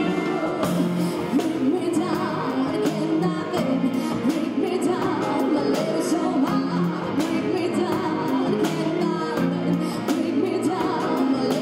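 A woman singing into a microphone, accompanied by a string ensemble of violins and cellos.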